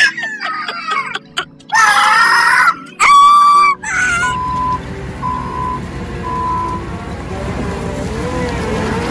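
Loud yelling and music for the first few seconds. Then a wheel loader's diesel engine runs with a low rumble while its backup alarm sounds three short, even beeps about a second apart, and the engine note rises and falls near the end.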